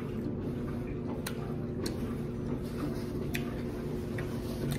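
Mouth noises of chewing a crisp tostada: a few sharp separate crunches and clicks over a steady low hum.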